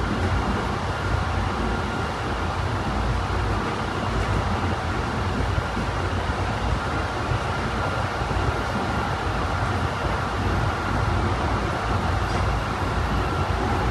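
Honolulu Skyline rapid-transit train heard from inside the car while running between stations: a steady low rumble of wheels and track, with a faint steady whine above it.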